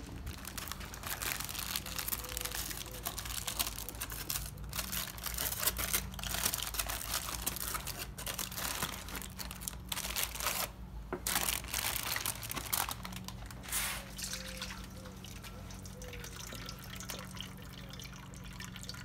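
Aluminium foil crinkling on and off as foil-wrapped racks of ribs are opened, with cooking juices dripping and pouring from the foil into a stainless steel bowl.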